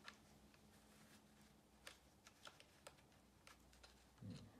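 Faint clicks and scrapes of a USB flash drive being fitted into a ThinkPad T420's tight side USB port, with a soft low thump a little after four seconds.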